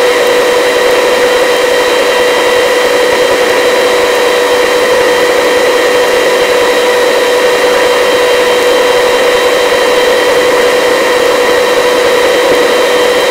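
Helicopter in flight: steady engine and rotor noise with a constant whine made of several steady pitches.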